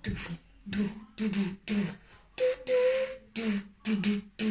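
A girl's voice beatboxing: short rhythmic vocal beats, about three a second, mixed with hissy mouth sounds, and a longer hiss about halfway through.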